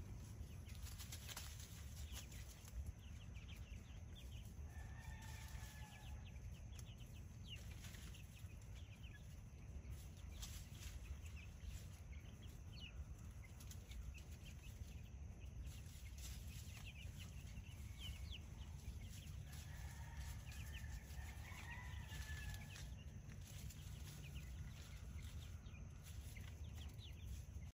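Chickens foraging and clucking softly, with a couple of short drawn-out calls about five seconds in and again around twenty seconds, over a faint steady low background.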